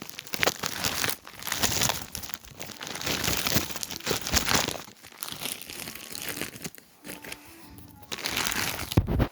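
Crinkling and crunching in bursts, quieter for a few seconds in the middle, then loud again and stopping abruptly at the end.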